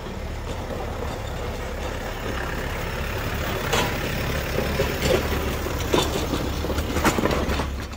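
Tow truck engine running as it slowly pulls a wheeled cannon, a steady low rumble with a few sharp knocks and rattles from about halfway through.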